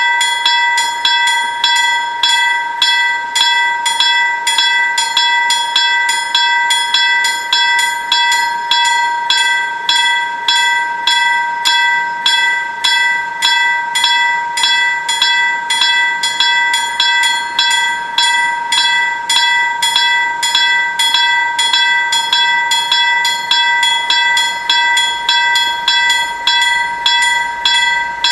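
Electric level-crossing bells striking at an even pace of about two strokes a second, each stroke ringing with a clear metallic tone: the crossing's warning that a train is coming and the barriers are down. A faint low rumble builds in the second half.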